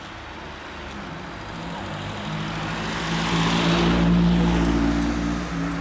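A motor vehicle's engine passing by, growing louder to a peak about four seconds in and then dropping in pitch as it moves away.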